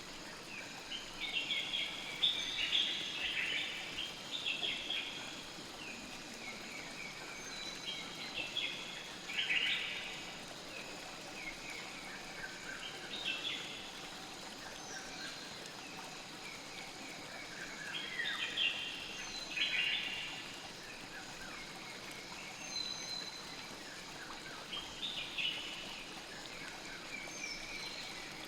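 River water flowing steadily, with bursts of bird chirping that come and go every few seconds over it.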